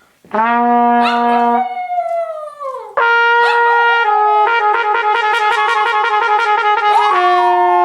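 A trumpet plays a series of held notes, changing pitch every second or so. A dog howls along over it, its voice sliding down in pitch and wavering against the trumpet tones.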